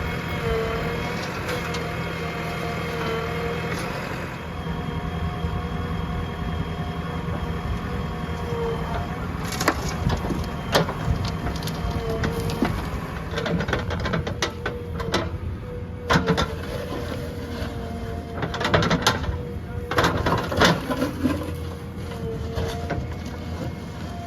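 Heavy diesel machinery running steadily, with a string of knocks and clatters starting about ten seconds in.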